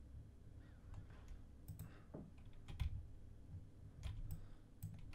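Faint, scattered clicks of a computer mouse and keyboard, a handful of separate clicks over a few seconds.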